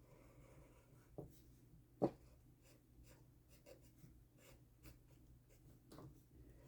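Pencil scratching faintly on paper in short drawing strokes, with a few soft knocks, the sharpest about two seconds in.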